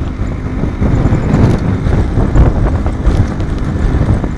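Wind rushing over the microphone of a moving Yamaha RX100 motorcycle, with the bike's two-stroke single-cylinder engine running underneath. Steady and loud.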